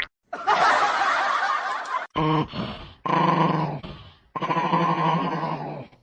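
A dog vocalising: first a harsh, noisy rasp lasting under two seconds, then three drawn-out pitched calls with a rough edge, the last one the longest.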